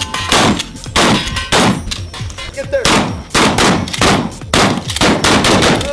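Shotguns firing in quick succession from several shooters on a line, about ten shots in all, roughly two a second, each ringing out briefly. Background music plays underneath.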